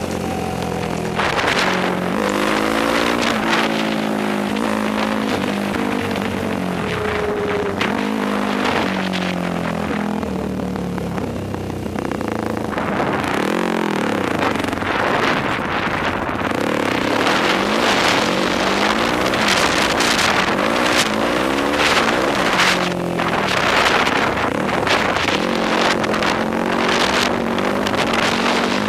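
Yamaha YFZ sport quad engine being ridden, its pitch repeatedly rising and falling as the throttle is worked and gears change, with wind buffeting the microphone.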